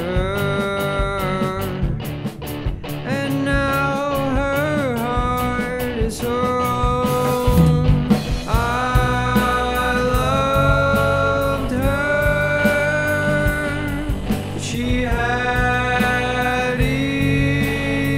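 Rock song with a sung lead vocal melody over electric guitar and a full band.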